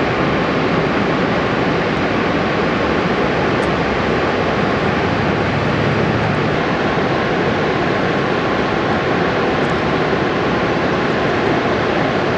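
Niagara Falls: a loud, steady rush of falling water and spray heard right beside the falls, unchanging throughout.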